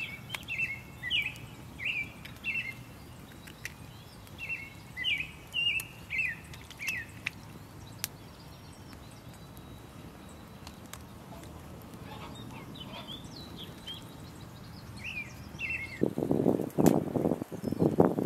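A songbird singing phrases of quick, slurred whistled notes, about six to a phrase, repeated with pauses of a few seconds. Near the end, close, irregular rustling and handling noises take over and are the loudest sound.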